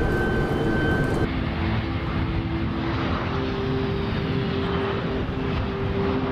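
Jet aircraft landing: a steady rushing turbofan noise with a low steady hum. About a second in the sound changes to that of a Boeing C-17 Globemaster III's four turbofan engines running as it lands.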